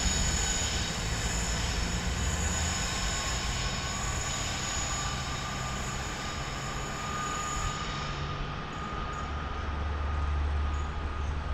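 GB Railfreight Class 66 diesel locomotive, with a two-stroke V12 engine, hauling a dead Class 92 electric and pulling away into the distance. It gives a steady engine drone with high whining tones, and the whine fades after about eight seconds while a low rumble stays.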